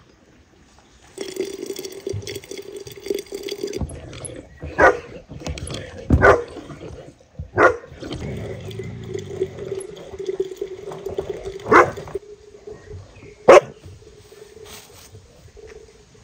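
Hand-cranked jar seaming tool rolling a metal lid shut on a glass jar: a steady squealing scrape as the handle is turned, broken by about five sharp clicks and knocks.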